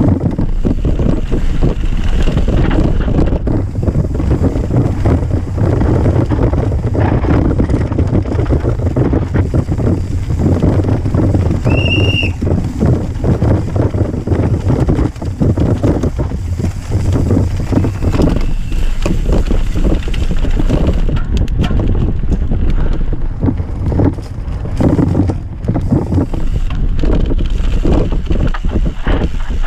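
Mountain bike descending a rough dirt trail at race pace, heard from a point-of-view camera: wind buffeting the microphone over a constant rattle and clatter of the bike and its tyres on dirt. A brief high squeal comes about twelve seconds in.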